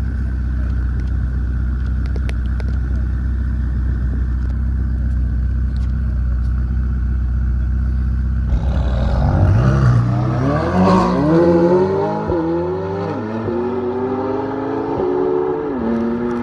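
Sports car engines idling, then a Ferrari 488's twin-turbo V8 launches hard about eight and a half seconds in and accelerates away. Its note climbs through several quick upshifts, with the pitch dropping at each shift.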